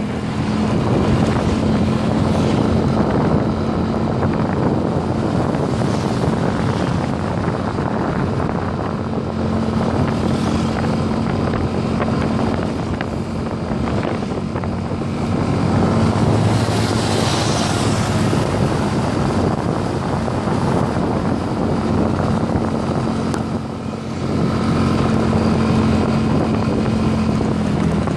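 Motorcycle engine running steadily while riding, with heavy wind rush on the microphone.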